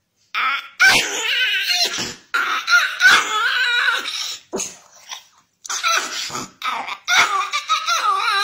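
Small dog howling and yowling in several long, warbling bouts that waver up and down in pitch.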